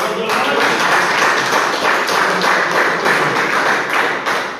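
A small group of people clapping: dense, steady applause that tails off near the end.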